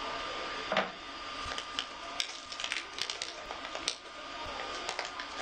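Crinkling and light clicking as a plastic-wrapped 3D printer filament spool is handled and unwrapped, densest in the middle. A steady faint hum runs underneath.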